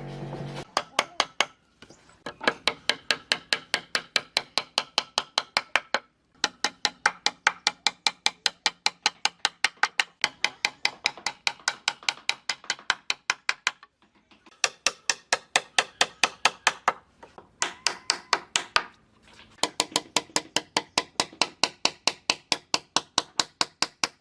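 Rapid hammer taps on wood, about four sharp knocks a second, in runs of a few seconds broken by brief pauses.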